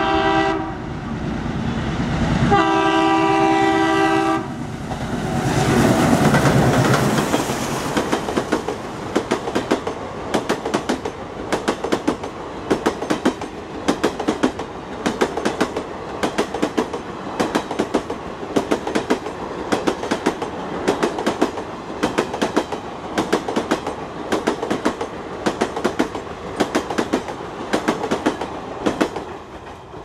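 WDM-3A ALCO diesel-electric locomotive sounding its multi-tone horn, the first blast ending just after the start and a second about 2.5 s in, then its engine passing close by. The passenger coaches follow, their wheels clicking steadily over the rail joints for about twenty seconds before fading near the end.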